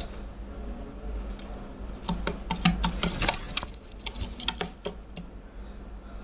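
A run of light, irregular clicks and taps, thickest from about two to five seconds in, over a low steady hum.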